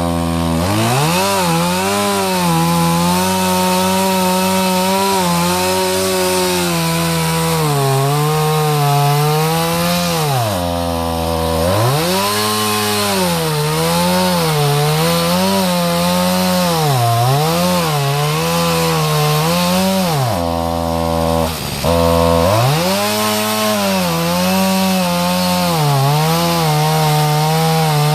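Small two-stroke chainsaw cutting into a tree trunk too big for it. The engine bogs down under load and revs back up over and over, with a few deep drops in pitch, as it labours through the cut.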